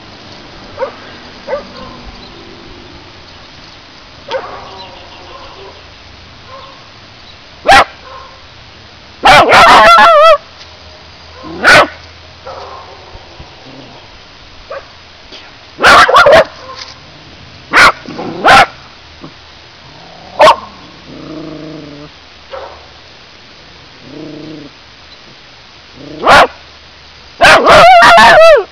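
Cockapoo barking territorially: single sharp barks spaced through, with rapid flurries of barks about a third of the way in and again at the end, loud enough to hit full scale.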